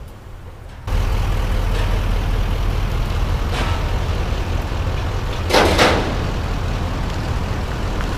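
Tow vehicle's engine running with a steady low rumble that comes in suddenly about a second in, with one brief hiss a little past the middle.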